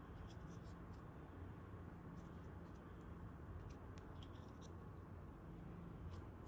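Faint handling noise: scattered light clicks and scratchy rubbing over a steady low hum.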